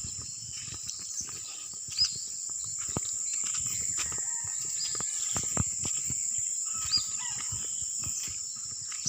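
Steady high-pitched insect drone, with scattered clicks and knocks (two louder ones about 2 and 7 seconds in) and a few short bird chirps.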